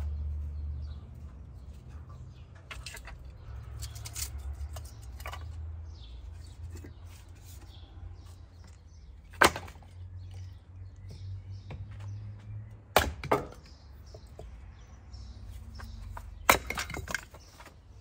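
Split firewood being pulled from a woodpile and gathered up, the logs knocking and clattering against each other. There are a few sharp wooden knocks: one about nine seconds in, two around thirteen seconds and two more near the end, over a low steady rumble.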